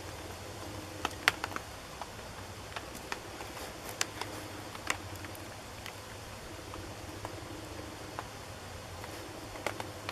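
Dry grass tinder and kindling of a small campfire crackling as it catches, with scattered sharp pops, the loudest about a second in.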